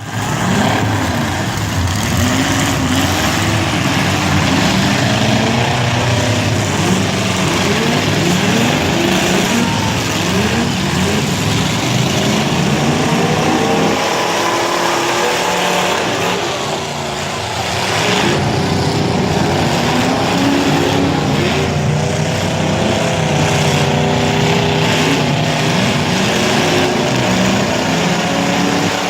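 Several demolition derby cars' engines revving and running at once, their pitches rising and falling and overlapping over a steady noisy background.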